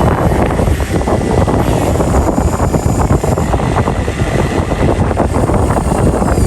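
Excavator engine running, a loud, steady, rough rumble.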